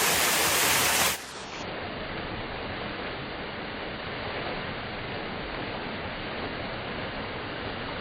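Waterfall's rushing water, a steady noise: loud and bright for about the first second, then cutting to a softer, duller rush.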